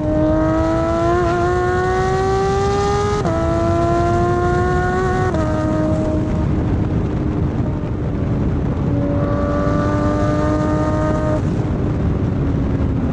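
Porsche 911 GT3 RS naturally aspirated flat-six with a straight-through Carrera Cup race exhaust pulling hard under acceleration. The note climbs, drops sharply at an upshift about 3 seconds in, climbs again, then settles lower as the driver eases off about 5 seconds in. The engine builds revs again for a couple of seconds near the end.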